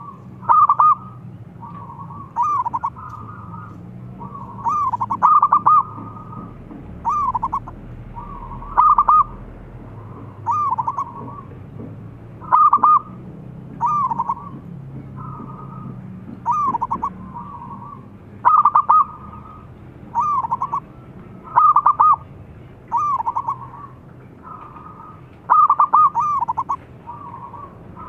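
Zebra dove (perkutut) cooing: short staccato phrases of soft, bubbling notes, repeated about every one to two seconds.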